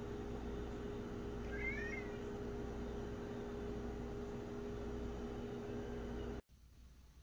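A house cat gives one brief, high meow about two seconds in, over a steady background hum. The hum cuts off suddenly near the end.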